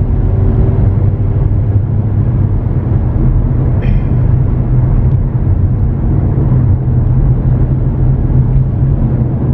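Car being driven: a steady low engine and road rumble.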